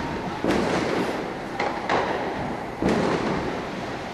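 Aerial firework shells bursting: a series of sharp booms about a second apart, each trailing off in an echoing rumble.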